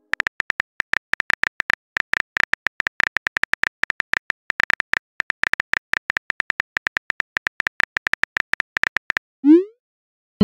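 Rapid phone-keyboard key clicks from simulated typing in a texting app, one click per letter, stopping about nine seconds in. A short rising whoosh follows near the end: the message-sent sound.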